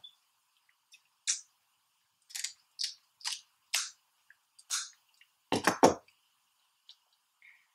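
Kitchen scissors snipping through cooked seafood shells: about six short, sharp snips roughly half a second apart. Then, about five and a half seconds in, comes a louder cluster of cracks and knocks.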